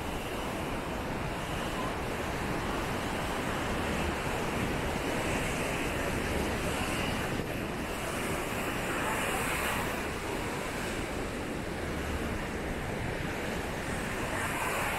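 Ocean surf breaking and washing up a sand beach, a steady rush of noise, with wind blowing across the microphone.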